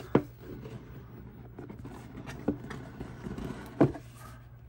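A rigid cardboard product box being handled: soft rustling and scraping, with sharp knocks or taps near the start, about halfway through and a louder one near the end.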